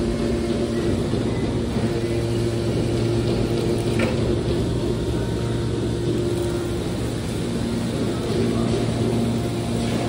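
Hydraulic scrap-metal baler's power unit running with a steady low hum while the ram pushes a compacted bale of metal turnings out of the discharge door. There is a single short click about four seconds in.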